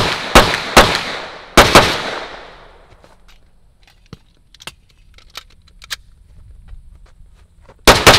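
Flux Raider, a SIG P320 fire control unit in a shouldered chassis, being fired: three quick shots, then a fast pair about a second and a half in. After a lull with faint small clicks, two more quick shots come near the end, each shot ringing out briefly.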